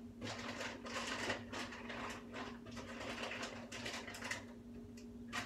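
Irregular rustling and scraping of food and packaging being handled close by, a quick run of short rough noises, over a steady low hum.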